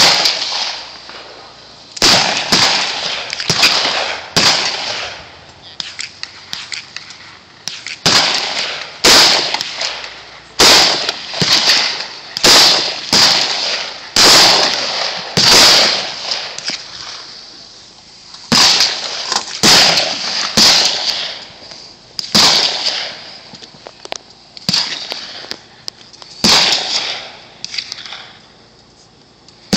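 Gunshots: about two dozen sharp reports fired at irregular intervals, some in quick runs of two or three, each trailing off in an echo, with short lulls between groups.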